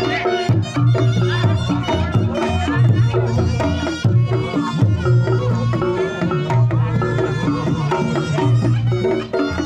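Reog Ponorogo ensemble playing: a slompret (reed shawm) carries a wavering, nasal melody over fast kendang drumming and repeated deep, sustained low notes.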